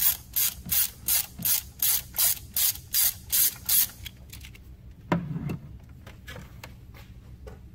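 A 13 mm socket ratchet is worked in quick back-and-forth strokes to loosen an engine bolt, with a burst of pawl clicks on each return stroke, about two or three a second. The clicking stops about four seconds in, and a single knock follows about a second later.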